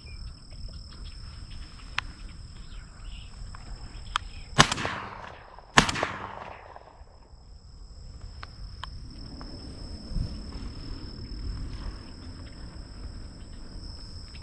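Two shotgun shots about a second apart, each trailing off in an echo, fired at incoming doves. Insects drone steadily with high tones underneath.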